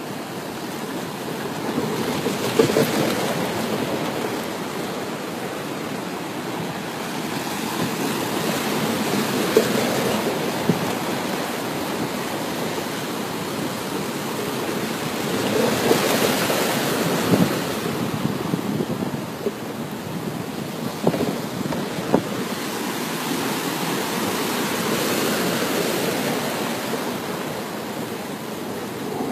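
Sea waves washing and breaking, swelling and ebbing every several seconds, with wind buffeting the microphone. A few sharp knocks come in the second half.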